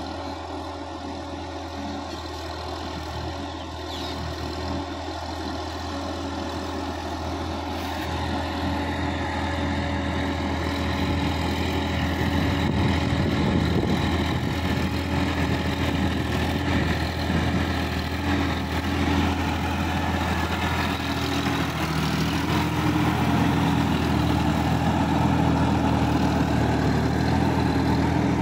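Sonalika DI-50 RX Supreme tractor's diesel engine running steadily as it works a flooded paddy field with a rotary tiller, growing louder as it comes closer, with water and mud churning.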